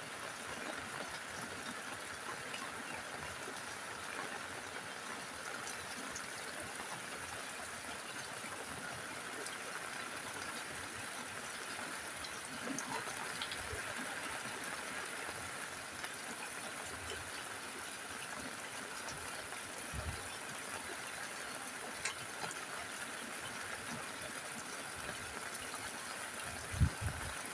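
Steady rain falling on a roof, an even hiss with no let-up, broken by a few low thuds of heavier drops, the loudest near the end.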